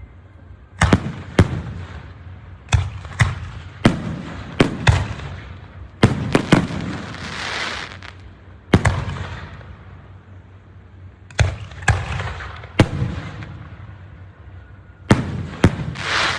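Aerial fireworks bursting in quick succession: more than a dozen sharp bangs at uneven spacing, each trailing off with an echo. A crackling hiss of crackle-effect shells comes about halfway through and again near the end.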